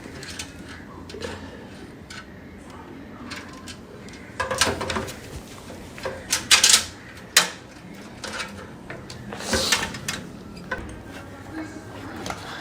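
Handling noise from fitting PC case fans: scattered plastic clicks and knocks with a few short rustling bursts, the loudest in the middle.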